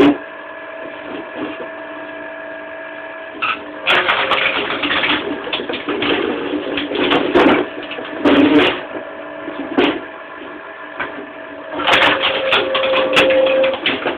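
Electric motor driving a screw-cone log splitter, humming steadily at speed. From about four seconds in, wood is forced onto the spinning cone, which bores in with coarse grinding and sharp crackling as the wood splits, in several bouts.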